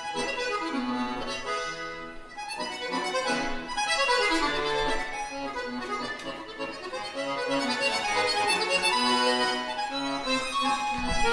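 Accordion playing a Brazilian forró tune as a concert piece: a smooth, legato melody over low bass notes, dipping softer about two seconds in and swelling louder again.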